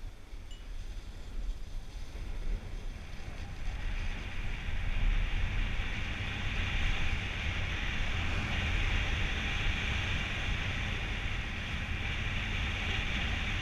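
Snowboard sliding and scraping over groomed snow, with wind buffeting the microphone; the scraping hiss grows louder about four seconds in as the board picks up speed, then holds steady.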